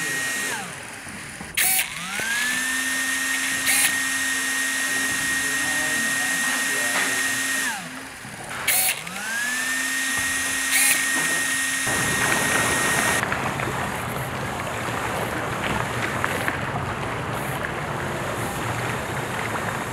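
Small electric motor of a bubble-blowing machine whirring steadily, twice winding down to a stop and spinning back up to speed, with a few sharp clicks. Near the end the whine gives way to a steady rushing noise.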